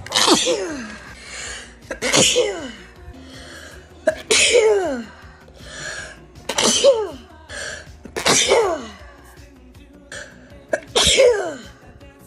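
A woman sneezing again and again in a fit: six loud sneezes about two seconds apart, each falling sharply in pitch. A shorter breathy intake comes between them.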